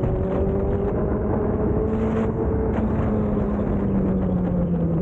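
Honda CBR1000 motorcycle's inline-four engine running steadily, its pitch drifting slightly lower toward the end.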